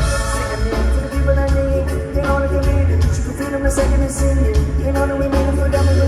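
Live reggae-rock band playing a song over a concert sound system: a heavy, steady bass line and regular drum hits under sustained held chords.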